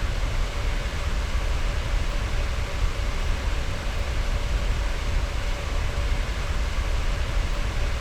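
Graphics card cooling fans running: a steady rush of air with a faint, steady whine.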